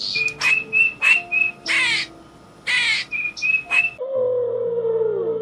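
Bird calls: a quick string of short, high chirps broken by two longer, harsher calls, over a soft steady music bed. About four seconds in the calls stop suddenly and a long, low tone slides slowly downward.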